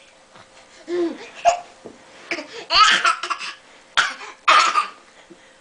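Laughter in short breathy bursts, about five of them spread over a few seconds with quiet gaps between.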